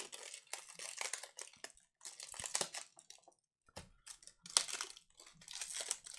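Plastic shrink-wrap on a trading card box crinkling and tearing as it is pulled off by hand, in irregular crackly bursts with a short pause a little after three seconds and a sharp crackle about a second later.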